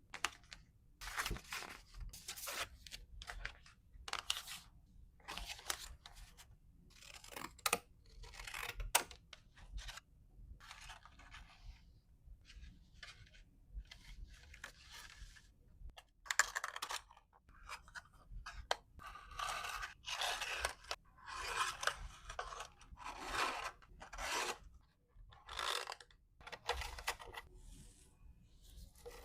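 Packaging materials being handled and torn: a series of short tearing and rustling sounds, each lasting a second or two.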